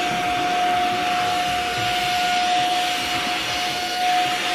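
Cordless stick vacuum running steadily, a high-pitched motor whine over the rushing hiss of its airflow.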